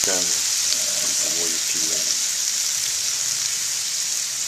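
Diced tomato, onion and green chilies sizzling in a steel frying pan, a steady hiss.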